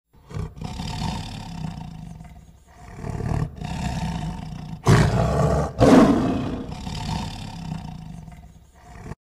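Tiger roaring: several roars in a row, the two loudest about five and six seconds in, dying away near the end.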